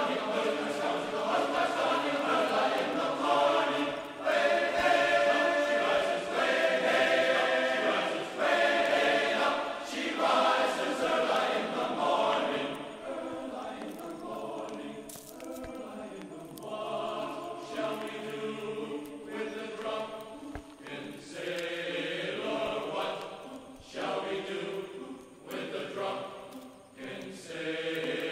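Background music of a choir singing in held notes, softer from about halfway through.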